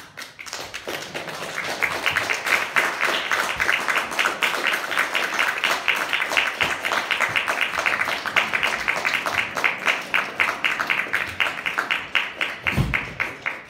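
Audience applauding, building up over the first two seconds, holding steady, then thinning out near the end.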